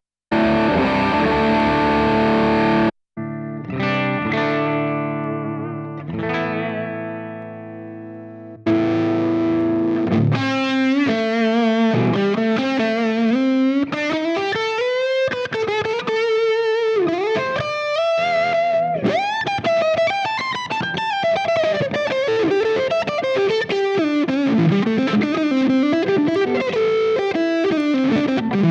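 Electric guitar played through a Fractal Audio FM9 amp modeler's presets. It opens with a sustained distorted chord, then chords that ring and fade. From about ten seconds in it plays a singing single-note lead line with bends and vibrato. The sound cuts out briefly twice in the first few seconds.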